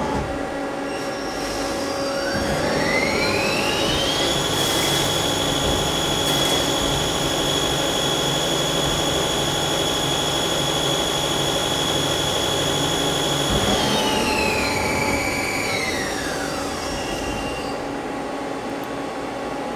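Mazak CNC lathe spindle whining as it speeds up over about two seconds, holding a steady high pitch while the turning tool cuts the part dry with coolant off, then winding down in steps near the end.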